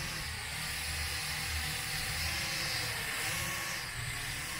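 PNJ R-Falcon HD quadcopter drone in flight, its propellers making a steady hissing whir, with an uneven low rumble beneath.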